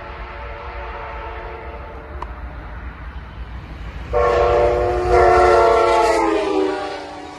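Horn of an Amtrak passenger locomotive in North Carolina livery (train 76, the Piedmont), sounding as the train approaches at speed: one blast that ends about two seconds in, then a much louder blast from about four seconds in that drops in pitch as the locomotive passes, over the low rumble of the train.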